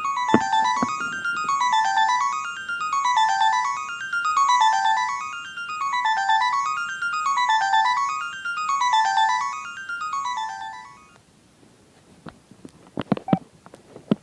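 Electronic phone ringtone: quick beeps step down the scale and back up again, over and over about eight times, then stop after about eleven seconds. A few sharp clicks follow near the end.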